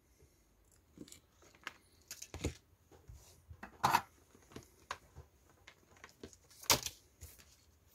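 Irregular small clicks, taps and rustles of handling, with three louder rustles spread through.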